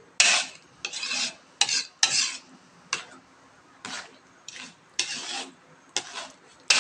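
A cooking utensil stirring spaghetti sauce in a pan, scraping across the pan in short irregular strokes, about ten of them.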